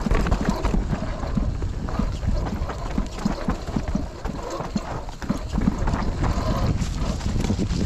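Mountain bike clattering down a rough trail: a dense run of irregular knocks and rattles over a steady low rumble of tyres and wind.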